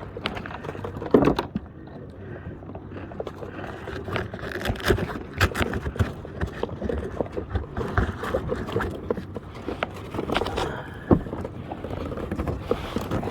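Irregular knocks, taps and scrapes on a plastic fishing kayak and its gear as a freshly caught fish and tackle are handled, over a steady low background noise.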